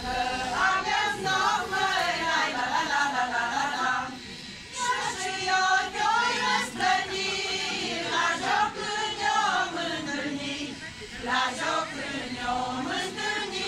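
A group of folk singers, mostly women with a few men, singing a Romanian folk song together in long phrases, with brief pauses between lines.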